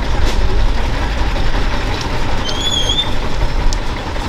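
Motor vehicle engines running: a steady low rumble under an even hiss, with a brief high squeal about two and a half seconds in.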